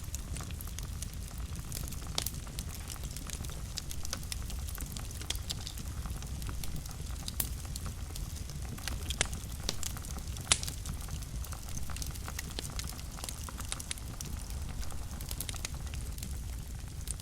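Wood fire burning in a fireplace: a steady low rumble of flames with scattered crackles and pops, the sharpest pop about ten seconds in.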